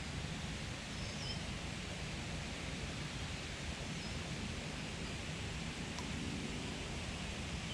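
Steady outdoor background hiss, with a few faint, short bird chirps about a second in and again near four seconds.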